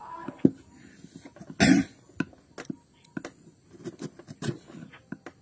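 Hand carving gouge cutting into the inside of a wooden bowl: irregular sharp clicks and short scrapes as each cut lifts a curled shaving. Nearly two seconds in, a short loud burst of noise stands out above them.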